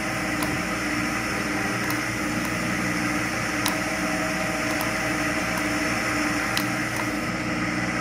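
Simulated CNC lathe machining sound from lathe simulator software: a steady hum of the spindle turning and the tool cutting during a turning operation, with the coolant running and a few faint ticks.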